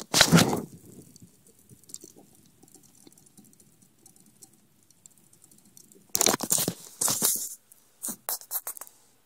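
Handling noise from a phone that is recording: it rubs and scrapes against a hand or surface, loudly at the start and again about six seconds in, with a faint crackling rustle between. A run of quick clicks follows near the end.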